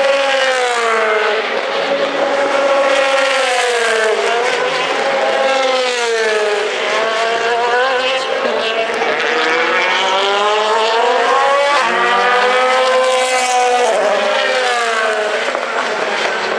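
DTM race car's 4-litre V8 engine at full racing speed. Its pitch climbs and drops again and again as it revs up and falls back, with a sharp drop a few times.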